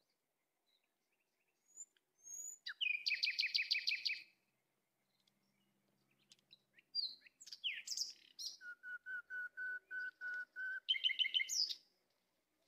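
Songbird singing in phrases: a fast trill of chirps a few seconds in, then assorted chirps and a run of evenly repeated whistled notes at about four a second, and a short trill near the end.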